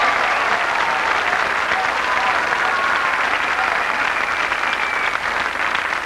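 Studio audience applauding steadily at the end of a live rap performance, dense clapping with a few voices calling out over it.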